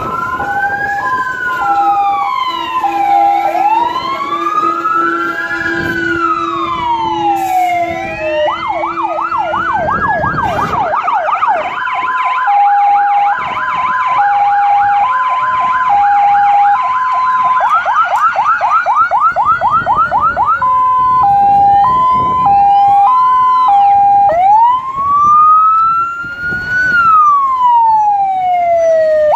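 Several fire engine sirens sounding at once. Slow rising and falling wails overlap with a fast yelp through the middle and a two-tone hi-lo siren switching between two pitches. A steady low tone runs from about two to ten seconds in, and the sirens cut off together at the end.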